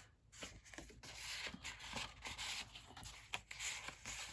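Faint rustling of the paper pages of a handmade junk journal being handled and turned, with a few small taps and clicks.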